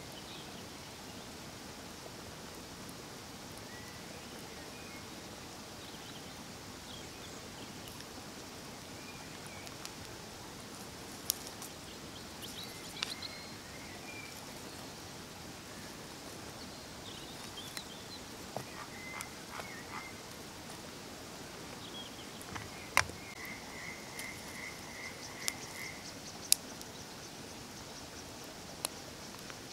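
Frogs croaking over a steady faint hiss of insects, with a quick run of about seven calls near the end. A few sharp cracks stand out now and then.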